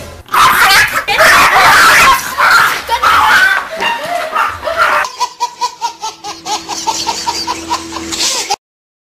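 A person screaming loudly in a high pitch for about five seconds, then a run of quick, rhythmic high-pitched laughter, about three bursts a second, that cuts off abruptly near the end.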